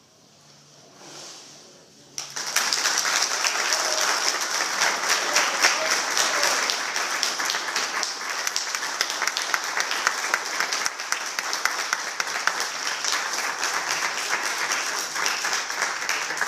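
Congregation clapping and applauding, starting suddenly about two seconds in and holding steady, in welcome of a just-completed baptism.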